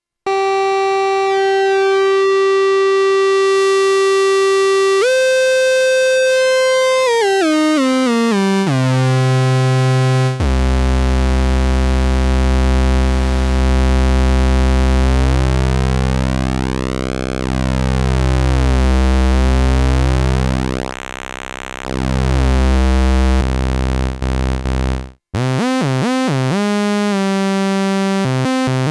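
Moog Mother-32 analog synthesizer playing raw synth tones: a held note that steps up about five seconds in and glides down into the bass, then a deep sustained bass drone whose timbre sweeps slowly, and after a short break near the end a fast warbling, pulsing patch.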